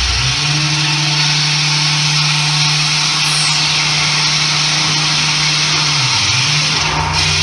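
Experimental electronic noise music played live: a loud, dense wash of hiss over a low, steady drone. The drone jumps up in pitch just after the start, wavers about six seconds in and drops back down near the end.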